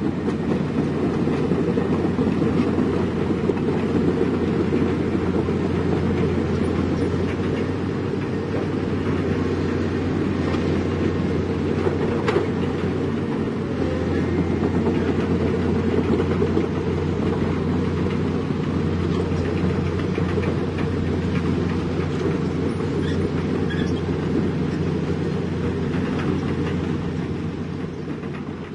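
Heavy diesel construction machinery running steadily under load, a deep engine drone with light clattering throughout.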